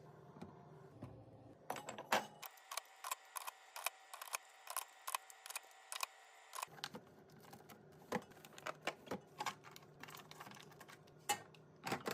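Irregular taps, clicks and light clinks of packaged items and containers being set down and arranged while restocking a fridge, about two or three a second with a few louder knocks.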